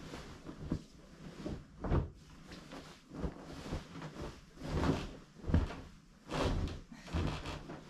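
A thick comforter being shaken out and flapped down onto a bed: fabric rustling and whooshing, with a few soft thumps as it lands.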